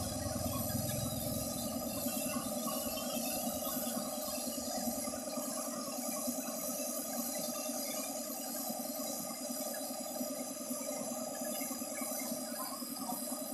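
Paint spray gun hissing steadily as it sprays, over a steady machine hum.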